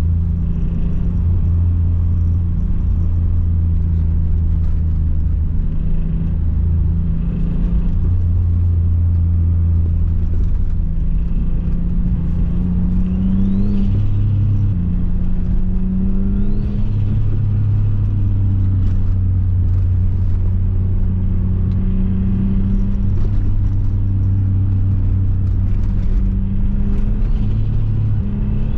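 Turbocharged Subaru Liberty Spec B's EZ30 flat-six engine and road noise heard from inside the cabin while driving, a steady low drone. About halfway through, the engine note rises and then falls back suddenly, and it rises briefly again near the end.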